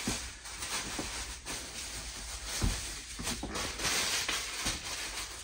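Bubble wrap rustling and crinkling as it is handled and pushed in between two upholstered rocker recliners, with a couple of soft knocks around the middle.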